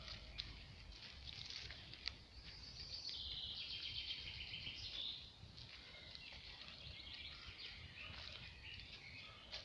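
Bicycle tyres rolling over a dry, leaf-covered forest dirt path, giving a faint run of crackles and ticks, louder between about three and five seconds in, over a low rumble.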